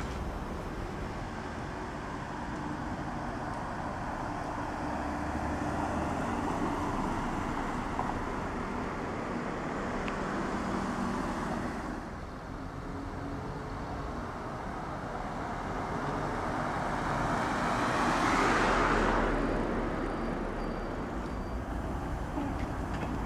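Street traffic noise: a steady background of cars on the road, with one car passing close, its noise swelling and then fading about three-quarters of the way through.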